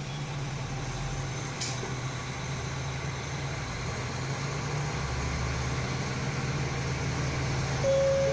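Diesel railcar engine heard from inside the car, running with a steady low hum that slowly grows louder as the train pulls away from the station. A steady higher whine joins near the end.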